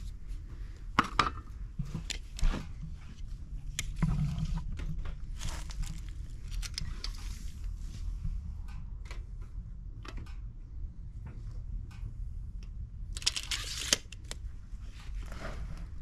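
Footsteps and small clicks and scrapes of someone handling a tape measure on a fresh-sawn hickory slab, over a low steady rumble, with a harsh rasp lasting about a second near the end.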